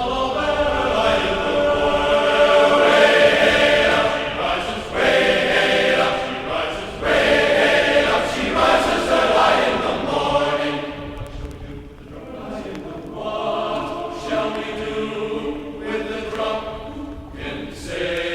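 Background music with sustained choral voices singing in long held phrases.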